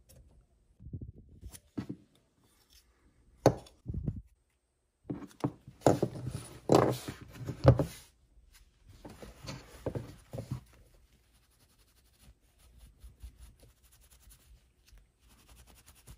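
Workpro utility knife cutting and scraping through material in two dense spells of strokes, with sharp clicks and knocks from handling around them.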